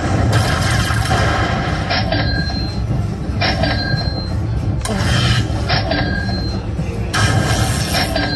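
Lightning Link slot machine playing its win sound effects while the win total counts up after the free spins: about six noisy bursts roughly a second or so apart, most followed by a short high beep.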